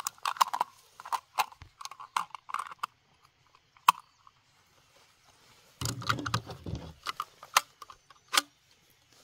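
Handling noise: scattered small sharp clicks and light rattles, with a brief rustle about six seconds in. Near the end come louder clicks as a Mossberg 190 16-gauge bolt-action shotgun is handled.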